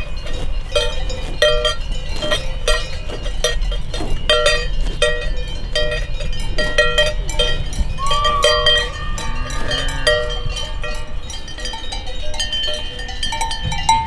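Cowbells on grazing cows clanking irregularly, a couple of strikes a second, each with a ringing metallic tone.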